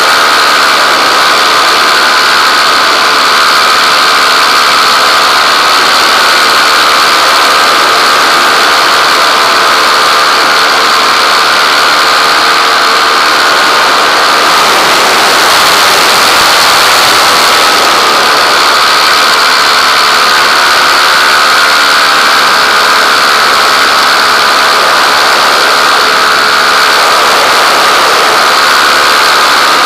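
Small aircraft engine and propeller running steadily at constant speed, close to the microphone, with a high droning whine over a rushing hiss.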